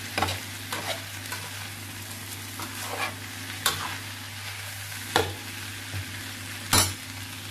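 Fried rice with egg and pickled greens sizzling in a frying pan while a metal spatula stirs and tosses it. Irregular sharp scrapes and knocks of the spatula against the pan sound every second or so over the steady sizzle, the loudest near the end.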